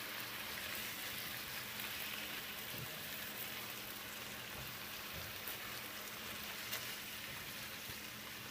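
Ground turkey with diced green pepper and onion sizzling steadily in a frying pan, with a few faint ticks.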